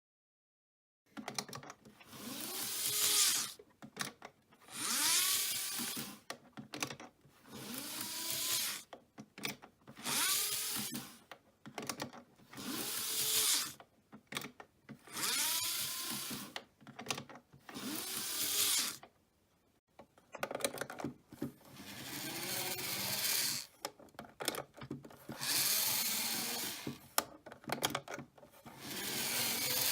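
N-gauge model train motor car's small electric motor and worm gear run in about ten short bursts of a second or two each, its whine rising in pitch and falling back with each burst.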